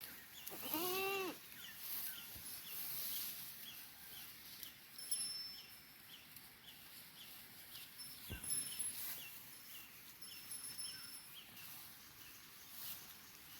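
A goat bleats once, about a second in, a short call that rises and falls. Short high chirps repeat steadily, about two to three a second, throughout, with a faint high steady whine in the middle.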